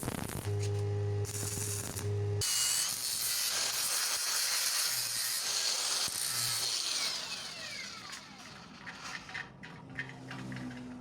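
A power tool motor runs with a steady hum, then gives way to a harsh, high-pitched whirring. The whirring winds down with a falling pitch and fades into a few light clicks.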